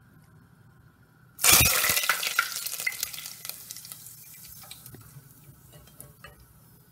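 Hot oil in a pot bursting into a loud sizzle about one and a half seconds in as fresh curry leaves and green chillies go in to fry. The sizzle fades over the next few seconds into scattered crackles while they are stirred.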